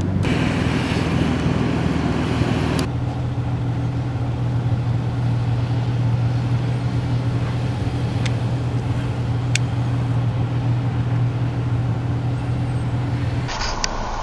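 Steady hum of a vehicle engine over road noise while driving. The sound changes abruptly about three seconds in and again near the end.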